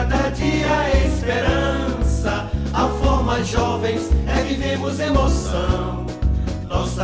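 Music from a Brazilian school anthem: voices singing over a steady instrumental accompaniment with a deep bass line.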